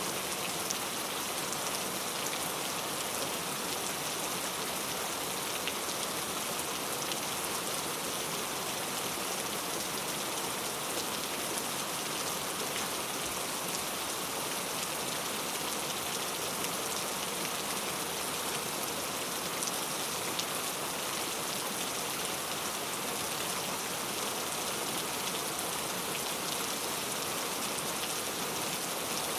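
Steady heavy rain falling, an even hiss of many drops with faint scattered drop ticks and no change in strength.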